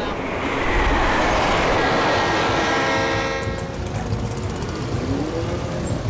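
Commuter train running along the track with a loud rushing noise, its horn sounding for about two seconds in the middle. A short rising tone follows near the end.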